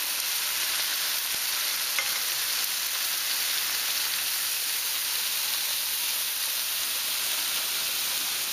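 Thin turkey cutlets sizzling in a frying pan with a little water added: a steady high hiss as the water steams them and lifts the cooking juices off the pan. A single light click comes about two seconds in.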